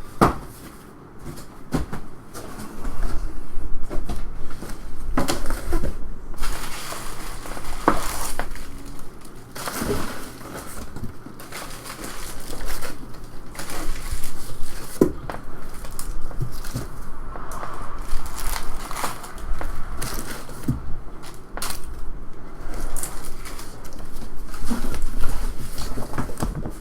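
Crinkling, rustling and crunching of plastic wrap and packaging while a hobby box of trading card packs is handled and opened, with scattered knocks and clicks of cardboard being handled.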